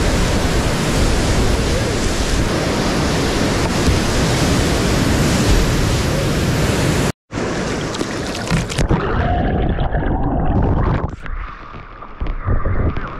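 Whitewater rapid rushing loudly around a kayak, a dense steady noise of churning water. About seven seconds in the sound drops out for an instant. Shortly after, the rush gives way to quieter, muffled water sounds with scattered small splashes.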